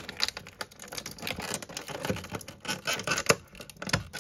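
Plastic packaging being handled as small spare plastic hands are taken out of it: an irregular run of sharp clicks, crinkles and rustles.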